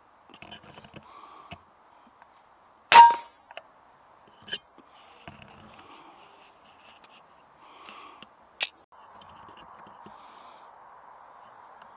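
A single sharp shot from an AGT Uragan 2 sub-12 ft-lb PCP air rifle about three seconds in, with a short metallic ring. A few lighter clicks follow.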